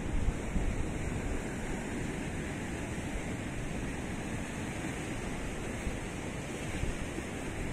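Ocean surf breaking on a rocky shore: a steady wash of waves. A few low thumps stand out, about half a second in and again near the end.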